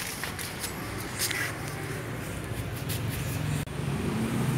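Light handling noises, a few small clicks and scrapes, over a steady low rumble; the sound changes abruptly about three and a half seconds in and the rumble grows louder.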